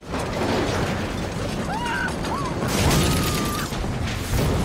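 Film sound effects of a propeller plane crash-landing through houses: a continuous loud crashing roar of smashing debris, tearing metal and fire. A few short wavering squeals sound about halfway through.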